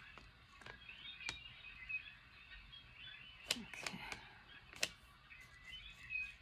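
Quiet room tone with a handful of faint, sharp clicks and taps, and faint high chirping in the background.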